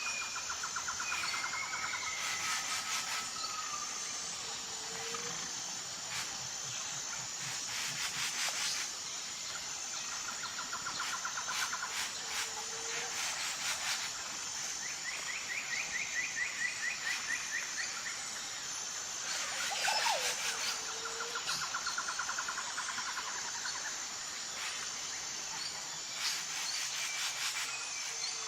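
Outdoor forest ambience: a steady high-pitched insect drone with birds calling over it. There are several rapid trilling calls and a short low whistled note that repeats about every seven or eight seconds.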